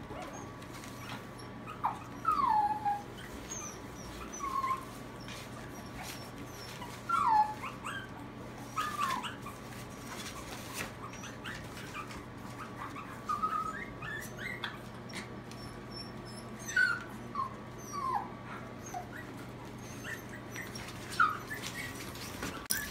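Maltese puppies whining: short high-pitched calls that fall in pitch, one every second or two, over a steady low hum.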